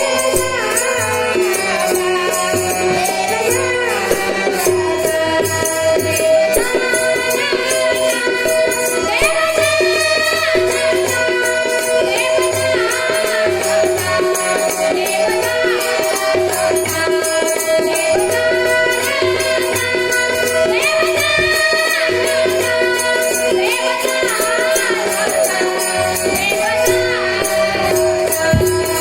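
Marathi devotional bhajan: a boy singing gliding phrases over a small harmonium's held notes, with fast, steady jingling percussion.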